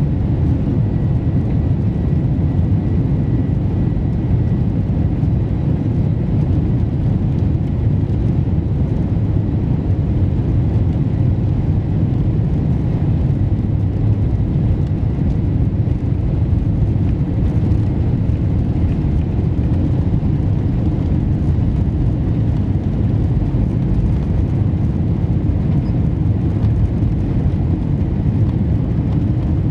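Steady low rumble inside the cabin of a Boeing 747-400 as it taxis: engine noise at low thrust mixed with the roll of the wheels. A faint thin whine sits over it in the first few seconds.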